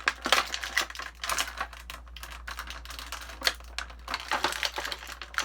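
Plastic action-figure packaging being handled and pulled at, giving a run of irregular clicks and crackles.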